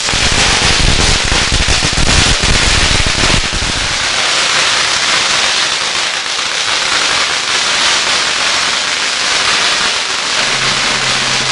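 A string of firecrackers going off in a continuous rapid crackle, with heavier bangs packed into the first four seconds before it settles into a thinner crackle.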